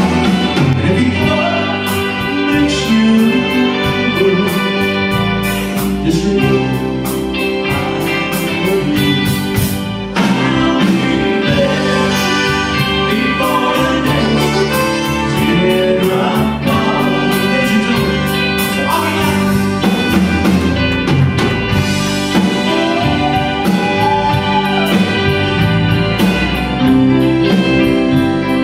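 Live Tex-Mex country band playing a song on stage, with electric guitars, drum kit, keyboard, trumpet and button accordion over a steady beat.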